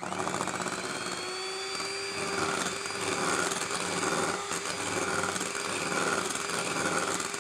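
Hand-held electric mixer switched on at high speed, starting suddenly and running steadily, its motor whine rising over the first couple of seconds as it spins up. The twin beaters are whipping a thin Dream Whip and milk mixture toward soft peaks.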